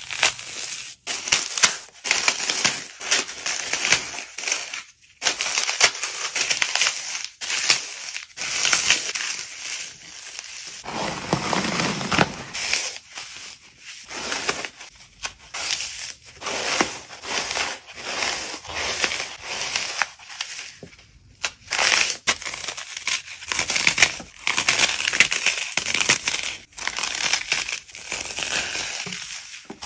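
Dry floral foam blocks crushed and crumbled by hand, breaking into chunks and crumbs. It is a dense, continuous run of crunches and crackles with only brief lulls.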